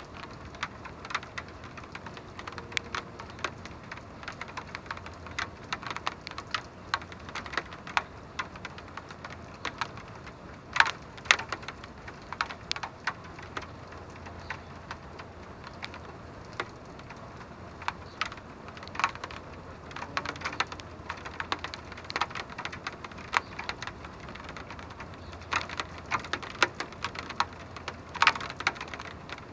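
Steady rain, with irregular sharp taps of drops landing close by.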